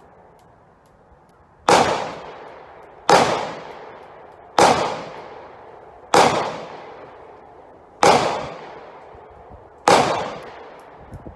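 Six gunshots, one every one and a half to two seconds, each a sharp crack that rings out and dies away under the roofed firing line.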